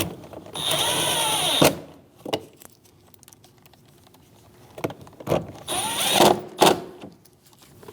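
Cordless drill/driver running in two short bursts, driving two 7 mm screws to snug down a car door panel, with a few clicks and knocks between the runs.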